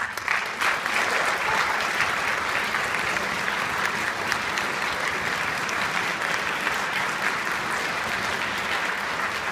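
Audience applauding: many hands clapping, breaking out all at once and holding steady.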